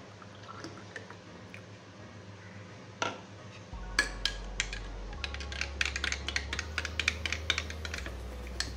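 Metal spoon stirring a thick mango drink in a cut-glass tumbler, clinking against the glass again and again. The clinks come quickly, several a second, from about four seconds in, after a single clink about a second earlier.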